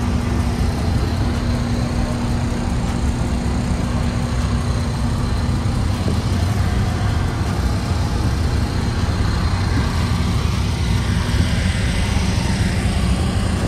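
Motor vehicle noise: a steady low rumble of a car running, with a hum that fades out in the first few seconds.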